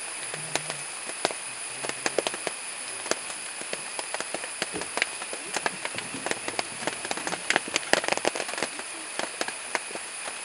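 Asian elephants pulling up and munching leafy greens: irregular crackling and snapping of torn stems and leaves, thickest about three-quarters of the way through.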